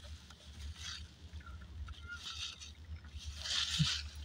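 Low steady rumble of a car's idling engine heard inside the cabin, with a few soft rustles and mouth noises on top, the clearest near the end.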